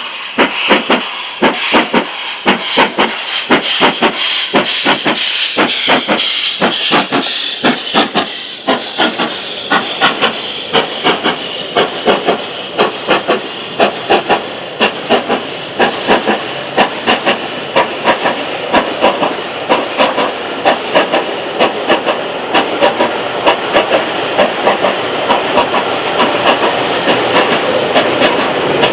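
Steam locomotive working hard up a steep gradient: slow, even exhaust beats from the chimney over a steady hiss of steam.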